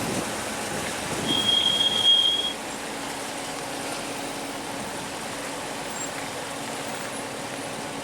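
Vehicle driving, a steady road noise throughout. About a second and a half in, a short high-pitched tone sounds for about a second.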